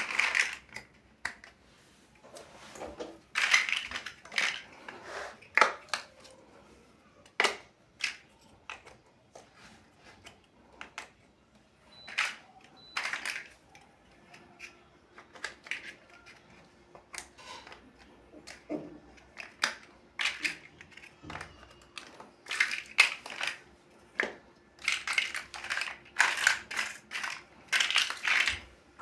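Plastic building bricks being handled and pressed together: irregular clicks and short clattering bursts, busier near the start and again near the end.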